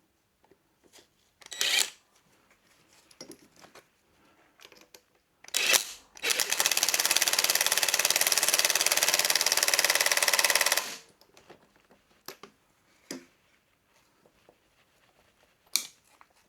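An impact driver hammering for about four and a half seconds, starting about six seconds in, with scattered clicks and knocks of tools and parts before and after.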